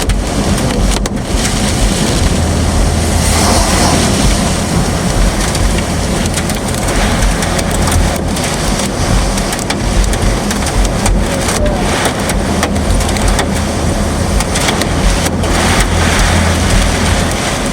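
Heavy wind-driven rain pelting a car, with the vehicle's low road and engine noise underneath; a loud, steady noise that surges and dips.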